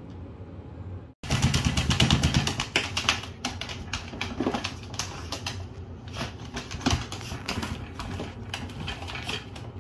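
Rapid, irregular clicking and scratching of a small dog's claws on the plastic floor of a pet carrier as the dog moves about inside. It starts about a second in and is loudest over the next couple of seconds.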